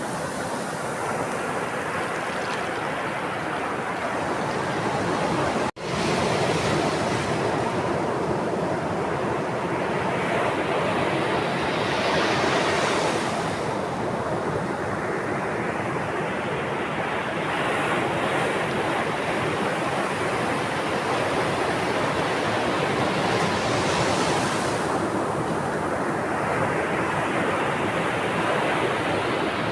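Sea waves washing on a shore: a steady rush of surf, with a wave swelling and breaking about halfway through and another near the end. The sound cuts out for an instant about six seconds in.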